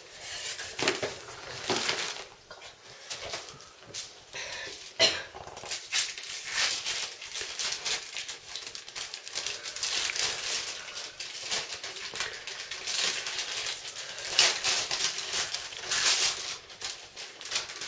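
Christmas wrapping paper being handled and torn open: irregular crinkling, rustling and ripping, with a few louder rips near the end.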